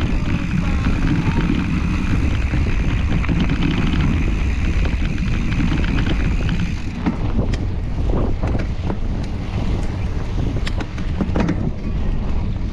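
Wind buffeting the microphone of a camera on a moving mountain bike, with a steady high whine for the first seven seconds or so; after that the bike clatters with many short knocks and rattles over rough trail.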